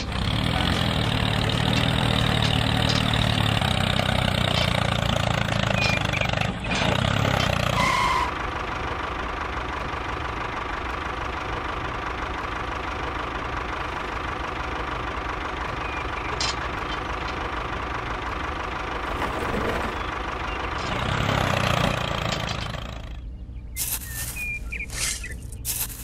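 Engine running steadily, as of a small tractor. It has a low throb for about the first eight seconds, then settles to a quieter steady hum with a thin high tone. Near the end it drops away, leaving a few light clicks.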